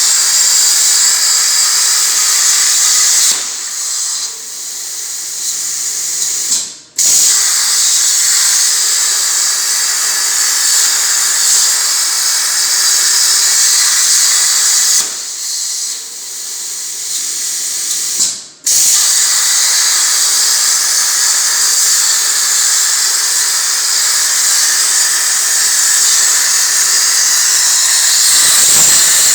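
CNC air plasma cutting torch hissing steadily as it cuts sheet metal. Twice it falls to a quieter hiss for about three seconds, cuts out for an instant and then restarts at full strength, as the arc goes off and is re-struck between cuts.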